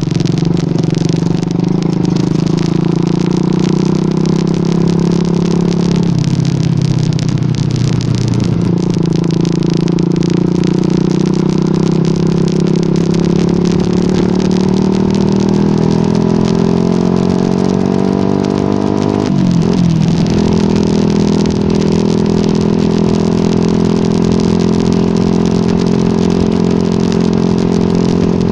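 Yamaha R15 V2's 150 cc single-cylinder four-stroke engine running under way. Its note changes about six seconds in, climbs steadily as the bike accelerates, dips briefly at a gear change about twenty seconds in, then holds steady.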